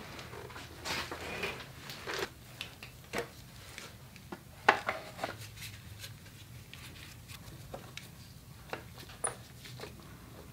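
Scattered light clicks, taps and rubbing as side shroud panels are handled and pressed into place on a motorcycle's radiator mounts, with a brief cluster of knocks near the middle.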